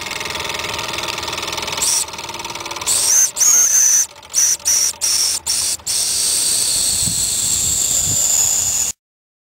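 Steam whistle on a Mamod TE1A toy steam tractor, blown with its lever. After a hiss of steam, the thin high whistle sounds in several short toots and then one long blast that slowly drops in pitch before cutting off suddenly.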